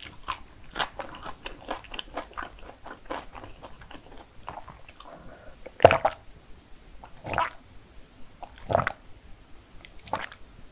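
Close-miked mouth sounds: small wet chewing clicks for the first few seconds, then, from about six seconds in, a series of gulps as she drinks tea from a glass mug, about one every second and a half, the first the loudest.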